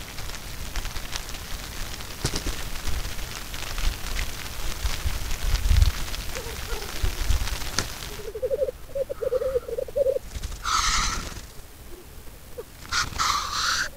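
Male black grouse at a lek: a pulsed, dove-like bubbling song about halfway through, then two loud hissing 'sneeze' calls in the last few seconds. Wind rumbles on the microphone in the first half.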